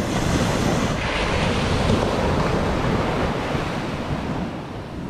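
Ocean surf breaking and washing up the sand, with wind rumbling on the microphone. The hiss of the wash swells about a second in and eases off near the end.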